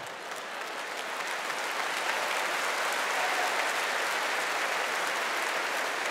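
Theatre audience applauding, swelling about a second in and then holding steady.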